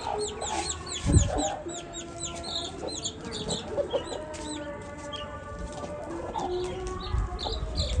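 Aseel chickens clucking and calling, over a steady run of quick, high chirps. A dull thump about a second in.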